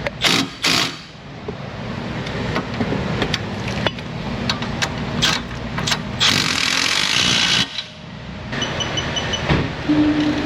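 Shop tool work on a car: a run of sharp clicks and knocks with short bursts of a power tool, then a longer hissing burst about six seconds in. A few quick high beeps follow near the end.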